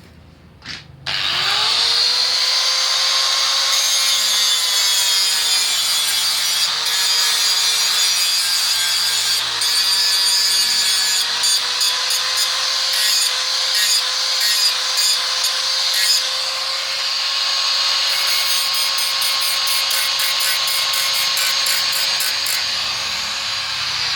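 An electric power tool's motor spins up about a second in and runs at a steady pitch, with a hissing, rubbing noise of metal being worked. There are scattered ticks, and a run of rapid ticking near the end.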